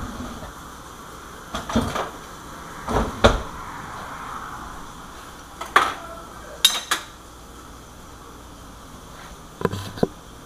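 Dishes and cutlery knocking and clinking as a plate is handled. There are a handful of separate knocks, some in quick pairs, and one ringing clink about two-thirds through.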